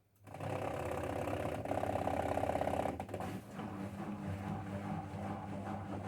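A Miele appliance starts suddenly with a mechanical hum and a rough buzzing rattle. The rattle is strongest for the first few seconds, then it settles into a steadier, slightly pulsing hum. This is the unwanted noise the owner is reporting.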